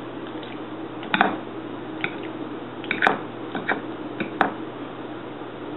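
A metal fork moving through sauced penne on a glass plate, clinking against the plate in about six short, sharp taps, the loudest about a second in and near the middle. A steady low hum runs underneath.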